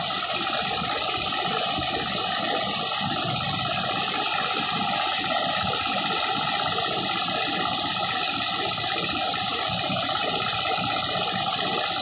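Single-cylinder diesel engine of a kuliglig, a hand tractor pulling a cart, running steadily while under way: a fast, even, rattling chug.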